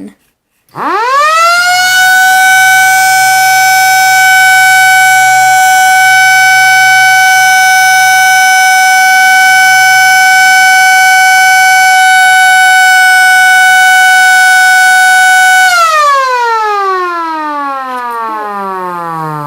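Viking Horns V906C chrome 12-volt battery-powered electric air raid siren on a full run: it spins up with a quickly rising wail, holds one loud steady high tone for about fourteen seconds, then winds down with a falling pitch near the end.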